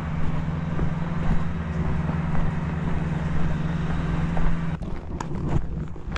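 Steady motor hum over wind noise, cutting off abruptly about five seconds in; a few light knocks follow.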